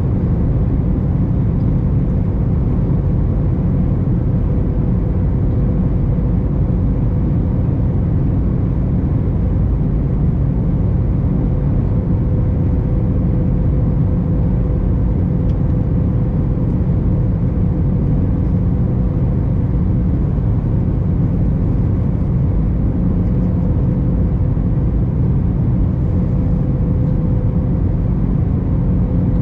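Steady cabin noise inside an Airbus A321 airliner in flight: a constant low rumble of engines and airflow with a faint steady hum running through it.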